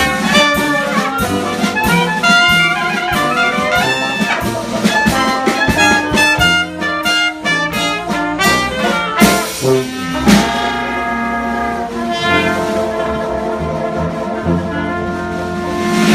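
Live brass band playing a lively jazz tune, quick notes for about ten seconds, then a long held chord that swells near the end.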